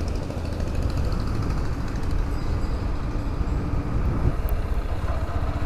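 Motorcycle running steadily at riding speed: a continuous low engine rumble mixed with road and wind noise.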